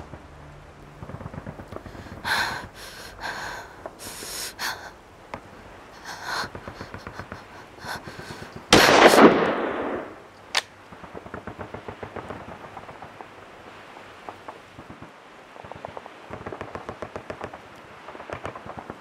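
Gunfire: rattling runs of rapid shots, several louder single shots, and one loud blast about nine seconds in that dies away over about a second, followed by a sharp crack.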